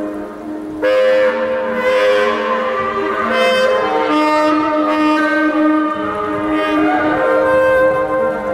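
Saxophone playing long held notes, often with two or more pitches sounding together and shifting every second or so, in a concrete underground tunnel.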